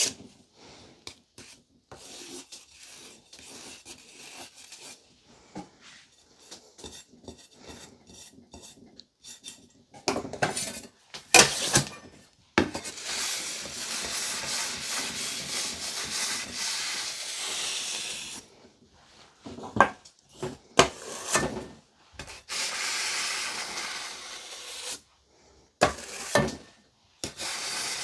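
A metal cake decorating tool scraping and smoothing buttercream on a cake: faint taps at first, a few sharp knocks about ten seconds in, then long stretches of steady scraping broken by more knocks.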